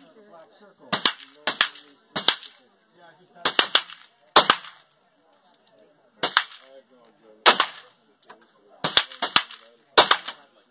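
A string of about a dozen sharp gunshots at irregular intervals, some in quick pairs, from a Beretta Storm 9mm carbine being fired at a range.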